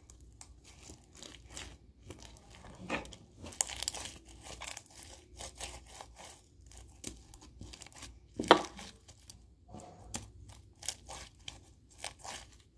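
Homemade fluffy slime being stretched and kneaded in the hands: a run of irregular sticky crackles and tearing sounds as the slime, still somewhat sticky, pulls apart, with one louder pop a little past halfway.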